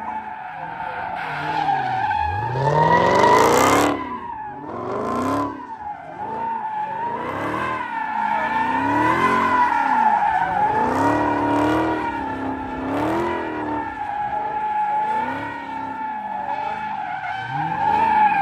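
Dodge Charger SRT Hellcat Redeye's supercharged V8 revving up and down over and over while the rear tyres squeal in a steady, wavering screech as the car spins donuts. The biggest rev climbs sharply about two seconds in and drops off about four seconds in.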